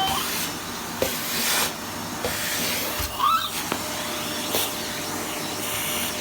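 Electric vacuum cleaner running steadily, a continuous rushing hiss of air over a faint steady hum.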